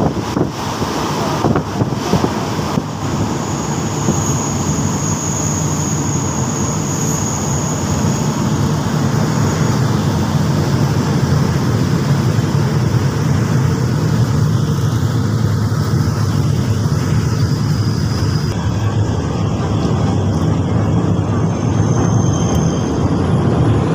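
Passenger train running along the track, heard from aboard: a steady low rumble of wheels on rails, with a few sharp knocks in the first three seconds and a thin high whine for several seconds after that.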